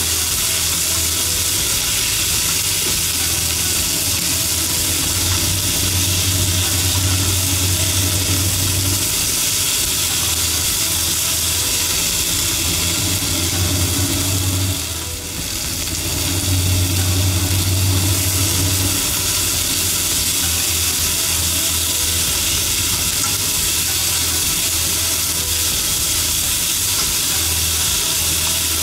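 Sliced green bell peppers sizzling as they fry in a nonstick frying pan, turned with chopsticks. A steady sizzle runs under a low hum that swells and fades several times, and the sizzle dips briefly about fifteen seconds in.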